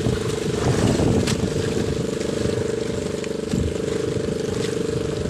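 Boat engine running steadily, an even drone with a few faint clicks over it, the clearest about a second in.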